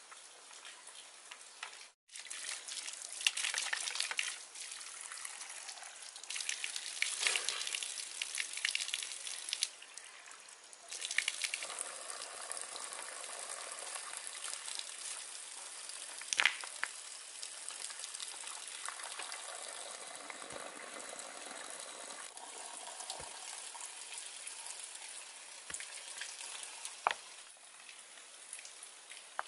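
Water splashing and trickling, coming in louder spells, with a couple of sharp knocks.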